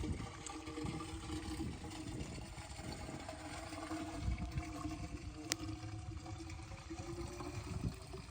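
12 hp diesel engine water pump set running with a steady hum, water splashing and trickling under it. One sharp click about five and a half seconds in.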